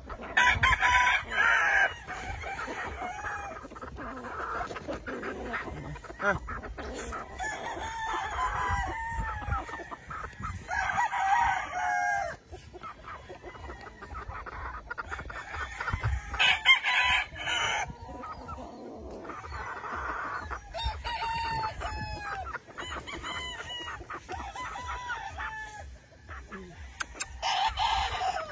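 Several gamefowl roosters crowing in turn, with loud crows at the start, at about 11 and 17 seconds and near the end, and clucking and fainter crows between them.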